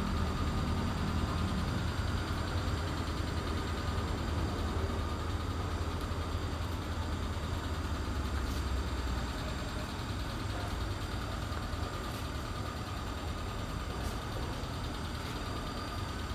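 Toyota Super Kijang G 1.8's four-cylinder petrol engine idling steadily, a low even rumble that eases a little about halfway through.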